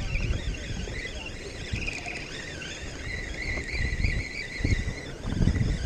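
Spinning reel being cranked against a hooked Spanish mackerel, its gears giving a wavering whir, while wind gusts rumble on the microphone.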